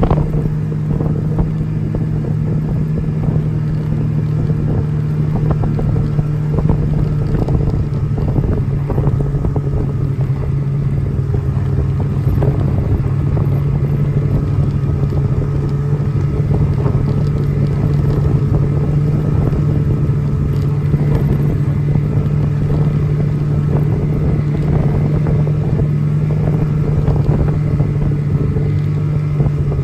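Snowmobile engine running at a steady speed, heard from on board while towing a skier: one constant drone under the rushing noise of the ride.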